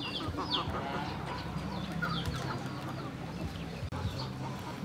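Backyard chickens clucking, with small birds chirping now and then in short, quick calls.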